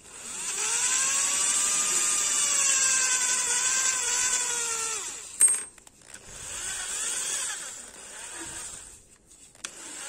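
Electric drill spinning a smoking pipe held in its chuck while used hook-and-loop sandpaper backing is pressed against it for polishing. The motor's whine rises as it starts, runs steadily for about four seconds and winds down. A sharp click follows, then it runs again briefly and spins up once more near the end.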